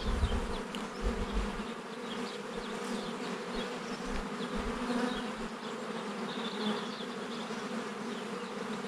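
Honeybees of an opened hive humming steadily, with a few low thumps near the start.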